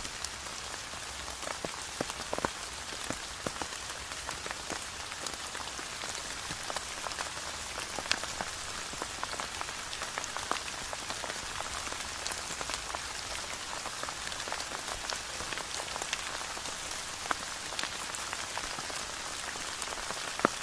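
Steady rain falling: a continuous hiss dotted with many sharp, separate drop hits.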